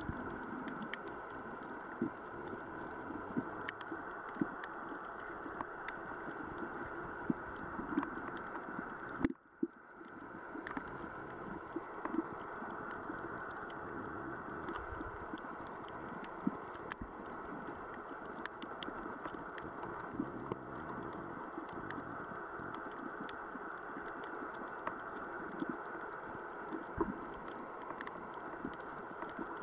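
Underwater sound picked up by a camera in its waterproof housing: a steady muffled hiss with many scattered sharp clicks and crackles, dropping out briefly about nine seconds in.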